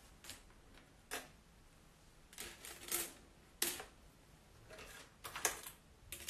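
Small items being handled at a nail-polish swatching table: about eight light, sharp clicks and taps at uneven spacing, as of polish bottles and caps being picked up and set down.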